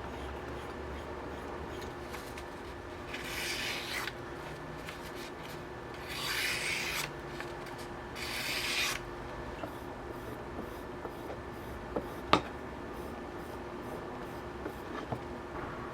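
Three strokes of a steel blade drawn along a leather strop loaded with honing compound, each a dry rubbing hiss lasting about a second. About twelve seconds in there is a single sharp click, the loudest sound, with a few fainter ticks around it.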